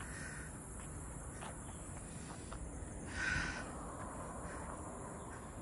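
Faint, steady insect chirring from roadside vegetation, with a short, louder sound about three seconds in.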